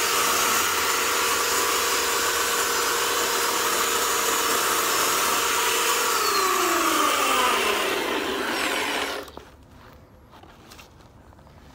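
Electric chainsaw with a dull chain running and cutting into hedge branches. About six seconds in, its motor pitch starts falling as it winds down, and the sound stops abruptly about nine seconds in.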